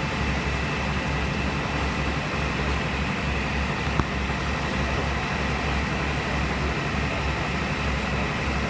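Fire engine's engine running steadily, a low pulsing hum under a wash of noise, with a single sharp click about four seconds in.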